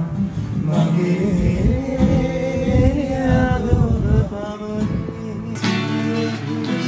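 A man singing along to a strummed acoustic guitar. About five and a half seconds in, the sound cuts abruptly to another stretch of guitar and singing with less bass.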